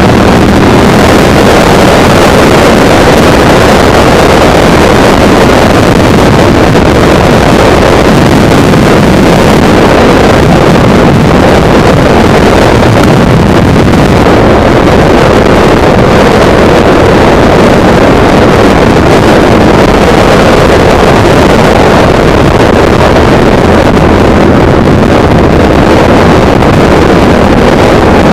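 Loud, steady wind noise buffeting a motorcycle helmet camera's microphone at riding speed, with the motorcycle's engine running faintly underneath.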